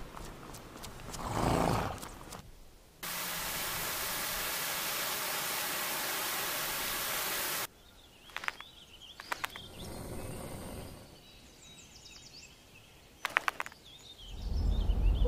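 A run of spliced ambient sound effects: a brief swelling whoosh, then a steady hiss that starts and stops abruptly, then scattered sharp clicks, with a loud steady low droning tone coming in near the end.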